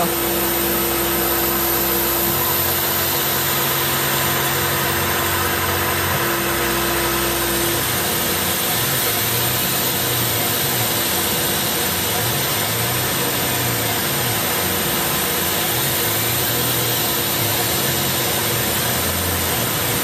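CNC milling machine spindle running a small ball end mill through aluminum, with the steady hiss of an air-blast coolant mister over it. A steady hum drops away about eight seconds in.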